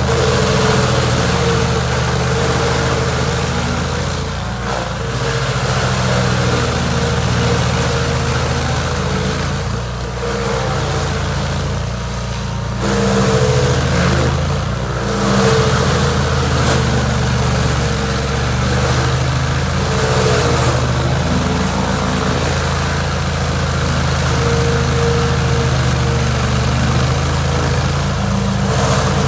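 Chainsaw engine running steadily at high speed while cutting a log root, its pitch and level dipping briefly a few times as the chain bites.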